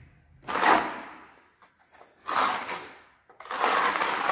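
Steel plastering trowel scraping wet mortar across a wall over fibreglass mesh: three long sweeping strokes about a second and a half apart.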